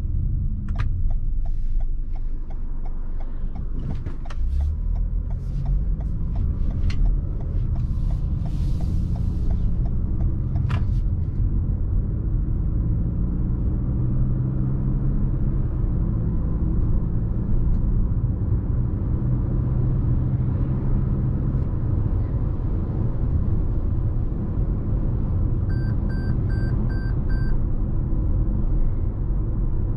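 Cabin sound of a 2021 Toyota RAV4 pulling away and accelerating: steady road and tyre rumble, with the engine note rising twice as the speed builds. Turn-signal ticking is heard in the first few seconds, and five quick electronic beeps sound near the end.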